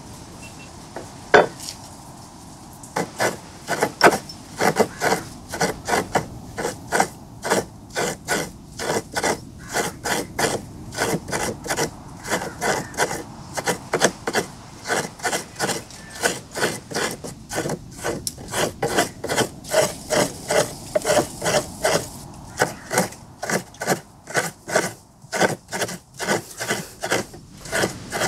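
Coconut half being scraped against the serrated blade of a traditional stand-mounted Kerala coconut scraper (chirava), shredding the white flesh with short rasping strokes about two to three a second. A single sharp knock comes about a second in, before the scraping starts.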